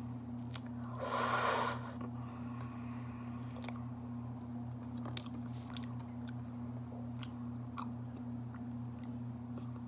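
Close-up chewing of raw honeycomb, the waxy comb worked in the mouth with small wet sticky clicks. One louder breathy burst comes about a second in, over a steady low hum.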